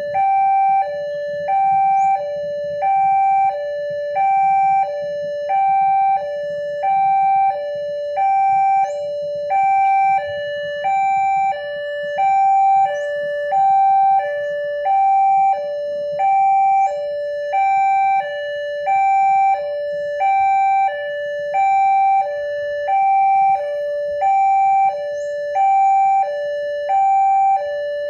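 Electronic warning alarm of an Indonesian railway level crossing, two tones alternating high and low about once a second without a break, signalling that a train is approaching and the crossing is closed.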